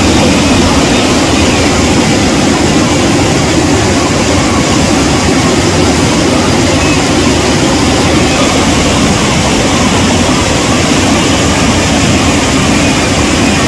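Loud, steady rush of river water churned by a dense run of salmon crowding below a weir.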